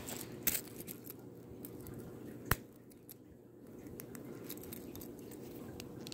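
Rustling handling noise with scattered light clicks and one sharp click about two and a half seconds in, over a low steady hum.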